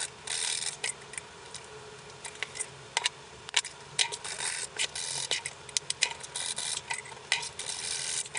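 A small metal file scraping in short strokes across the cut end of a piece of copper-coated MIG welding wire, about half a second per stroke, with sharp clicks of the wire and small metal tools being handled and set down.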